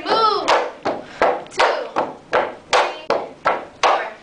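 Tinikling bamboo poles struck in a steady beat, about three sharp wooden knocks a second. A brief laugh comes at the start.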